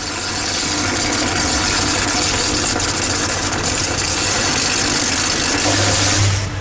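Electrical arcing on a light-rail power system: a loud, steady hissing crackle with a low electrical hum under it, cutting off suddenly about six seconds in.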